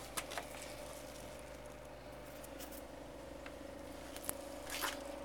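A sharp dent tap pressed and dragged into a Hummer H2's door skin to deepen a crease dent: a few light clicks, and a short scrape near the end, over a faint steady hum.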